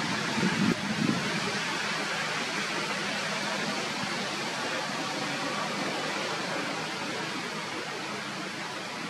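Steady, even outdoor background hiss with no clear tone or rhythm, broken by two brief low bumps about half a second and a second in.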